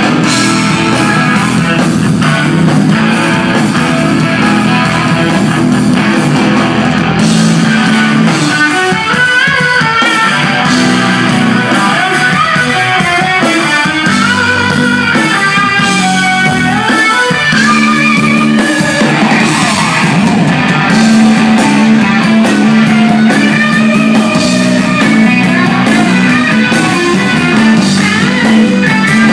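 Live instrumental rock from a guitar, bass and drums trio: an electric guitar plays fast melodic lead lines over bass guitar and a drum kit.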